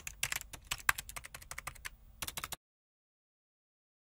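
Computer-keyboard typing sound effect: quick, irregular key clicks, several a second, that stop abruptly about two and a half seconds in and leave dead silence.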